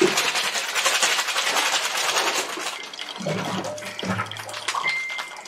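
Water running in a thin stream from a water dispenser's tap into a glass, a steady splashing trickle that gets weaker after about three seconds.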